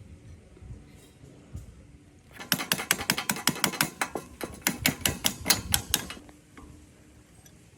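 Rapid ratchet clicking, about six or seven sharp clicks a second, lasting roughly three and a half seconds from about two and a half seconds in.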